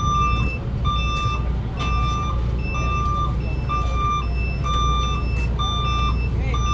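Wing van truck backing up, its reversing alarm beeping in an alternating low-high two-tone pattern about once a second over the steady low rumble of its engine.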